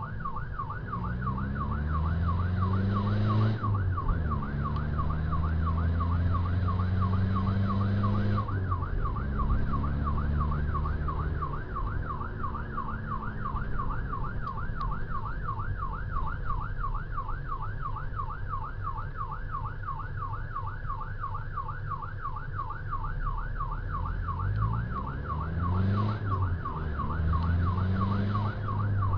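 Rescue vehicle's electronic siren warbling, rising and falling about three times a second. Underneath it, the vehicle's engine climbs and drops back as it accelerates through the gears, once in the first few seconds and again near the end.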